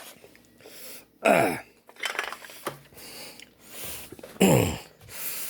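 A man's short throaty vocal sounds without words: two louder ones, about a second in and near the end, each falling in pitch, with fainter breathy sounds between.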